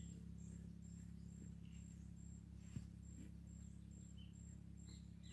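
Faint insect chirping outdoors: a thin, high pulse repeating evenly about twice a second, with a few faint bird chirps.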